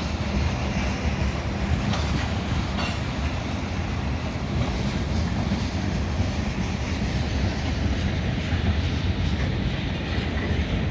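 Freight train cars, mostly gondolas, rolling past on the track: a steady rumble of wheels on rail with a couple of sharp clacks about two and three seconds in.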